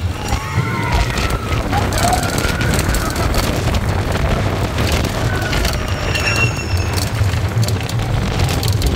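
Slinky Dog Dash roller coaster train running along its steel track at speed: a steady low rumble of wheels on rail, with rushing air over it and riders' voices calling out now and then.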